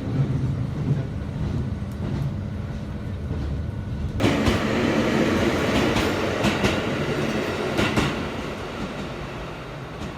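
JR passenger train running on the rails, a steady low rumble with the clicks of wheels over rail joints. About four seconds in, a much louder rushing noise sets in abruptly, dotted with sharp clicks, and eases off near the end.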